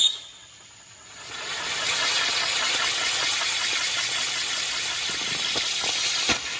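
Roulette-wheel firework: its whistle cuts off, and after about a second's lull a stage ignites and sprays sparks with a steady hiss and fine crackle, dropping away shortly before the end. The wheel is stalled and only sputtering; the cheap firework did not fire properly.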